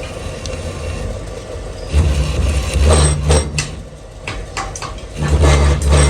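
Machine-shop noise: a low motor hum that swells twice, with sharp metal clinks and clatter over it.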